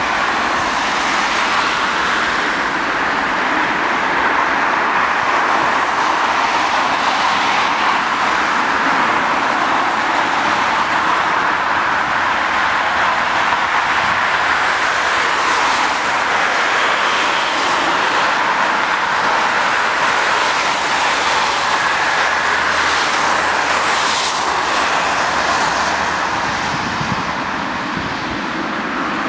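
Twin turboprop engines of a Beechcraft King Air 350 running at taxi power: a steady, loud hiss and whine, fading slightly near the end.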